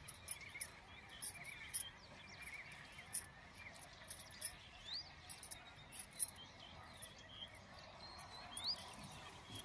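Faint outdoor ambience of insects and small birds: irregular short, sharp, high ticks, with a few brief rising chirps.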